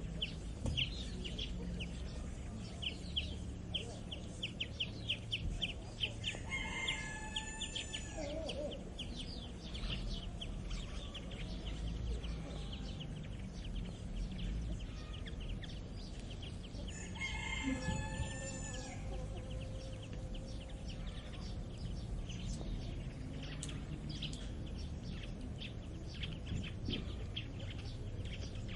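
Rooster crowing twice, once about a quarter of the way in and again past the middle, each crow about two seconds long, over the steady chirping of small songbirds and a low background rumble.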